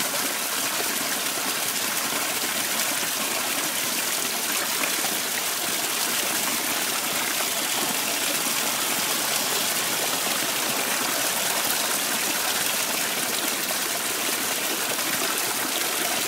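Small garden waterfall splashing steadily into a rock pool close by, a constant, even rush of water.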